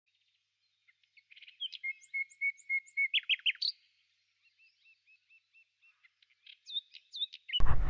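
A songbird singing over silence: runs of repeated clear notes and quick rising chirps, a faint stretch in the middle, then more chirps. Near the end it cuts abruptly to loud, low, rumbling outdoor noise.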